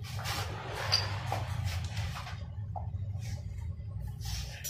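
Hands handling metal engine parts: light rustles and clicks, a sharp tap about a second in and a short metallic clink near the end, over a steady low hum.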